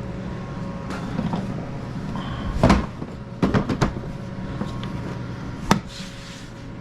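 A few sharp knocks and clicks of small tool parts and cases being handled and set down, the loudest about a third of the way in and another near the end, over a steady hum.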